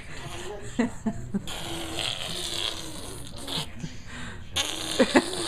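A small child making animal noises with his mouth: two long breathy blowing noises with a little voice in them, and a few short sharp vocal sounds.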